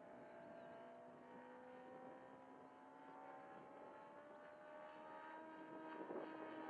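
Laser 200 in-line twin four-stroke engine of a radio-controlled model plane in flight, a faint distant drone whose pitch glides slowly and which grows louder near the end as the plane comes nearer. The engine is running on a tuned setting that sounds a lot better.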